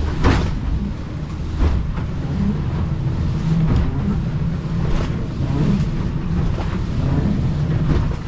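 A small boat's motor running steadily under way in rough water, with the hull slapping into waves several times and wind buffeting the microphone.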